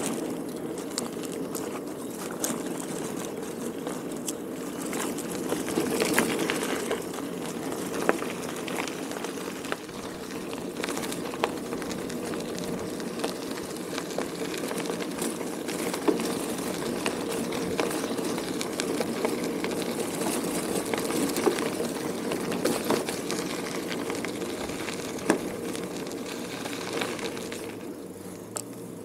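Bicycle tyres rolling over packed fine gravel: a steady crunching hiss with frequent small clicks and rattles, dropping away near the end.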